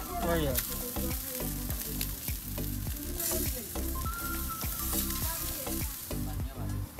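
Chicken drumsticks sizzling on a hot gas grill as they are turned with tongs, over background music with a steady beat.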